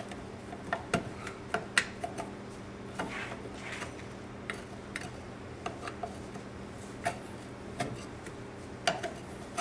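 Two screwdrivers prying and wiggling a pool pump motor's end bell off its casing: irregular light metallic clicks and taps, a few each second, with some scraping between.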